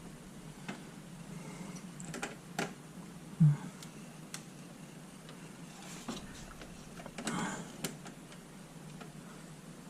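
Hands handling a model airplane and its parts: scattered small clicks and taps, one dull thump about a third of the way in, and a brief rustle about three quarters of the way through.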